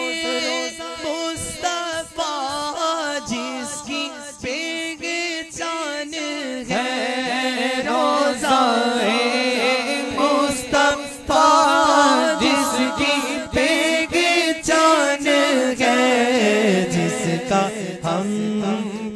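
A male voice singing an Urdu naat unaccompanied, holding long, ornamented notes with no words clearly sung. Beneath it, other voices hold a steady low drone, which drops lower near the end.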